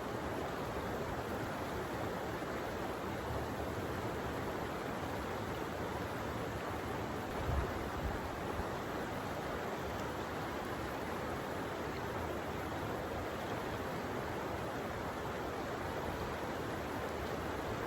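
Steady, even rushing noise, with a brief low thump about seven and a half seconds in.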